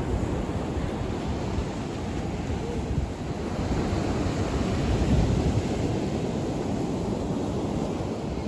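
Ocean surf washing onto the beach, with wind buffeting the microphone; a wave swells louder about four seconds in.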